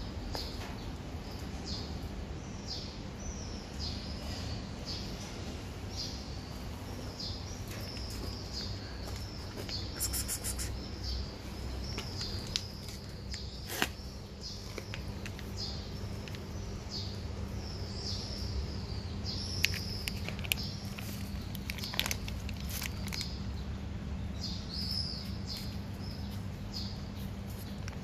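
A small bird chirping over and over: short, high-pitched, falling chirps, a little under two a second. Under it runs a steady low hum, and a few sharp clicks come in the second half.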